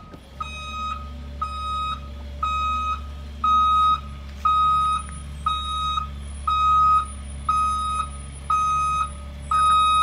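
Reversing alarm of a Blue Bird school bus backing up: a steady beep about once a second, each about half a second long, over the low, steady running of the bus's engine.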